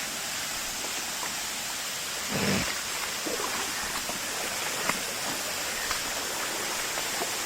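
Steady rushing of a waterfall and its stream, an even hiss of falling water. A brief low sound breaks in about two and a half seconds in.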